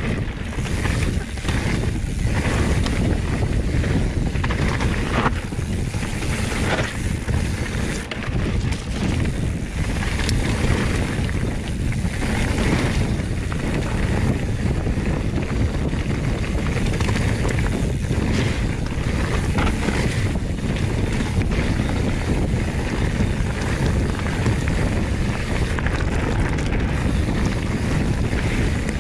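Wind buffeting a handlebar-view action camera's microphone as a hardtail mountain bike rides down dirt singletrack, over a steady low tyre rumble with scattered short knocks and rattles from the bike.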